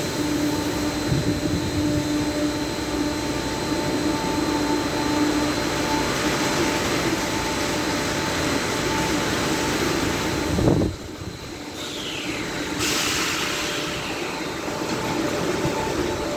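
Automatic tunnel car wash machinery running, a steady mechanical din with a constant hum. About eleven seconds in, the sound drops suddenly and a short falling whine follows, then a hiss.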